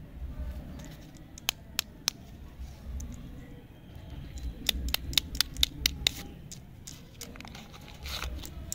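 Plastic wrapper of a chewy lollipop being handled and opened with the fingers: sharp crinkly clicks, three spaced ones, then a quick run of them midway, then a short crackling rustle as the wrapper is pulled open near the end.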